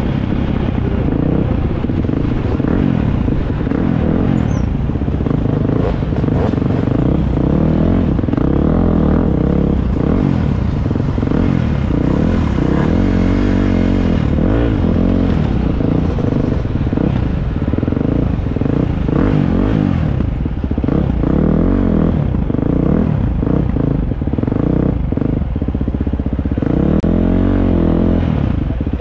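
Husqvarna FC350 single-cylinder four-stroke motocross bike engine revving up and down as it is ridden, with some clatter.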